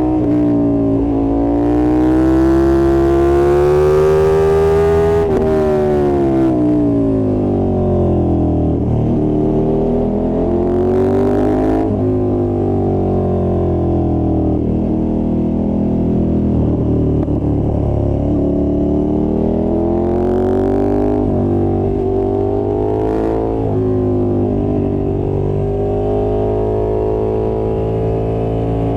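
KTM 1290 Super Duke R's V-twin engine under way, its note rising and falling repeatedly as the bike accelerates and slows.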